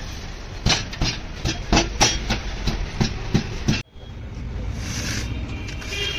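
Irregular knocks and clatter that cut off abruptly a little under four seconds in, followed by a steady low rumbling background noise.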